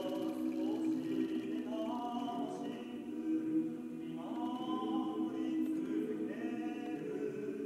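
Background music: choir-like voices holding long notes over a steady low chord, with new notes entering every second or two.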